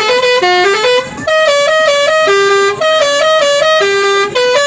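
A bus's Basuri telolet horn playing a tune in loud, buzzy, stepped notes. A quick repeating run of short notes gives way, about a second in, to a different melody of short and longer held notes.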